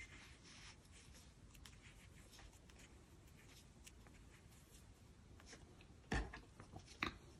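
Faint scratchy rubbing and light clicks of a crochet hook and yarn being worked through stitches. Near the end there are two louder knocks about a second apart.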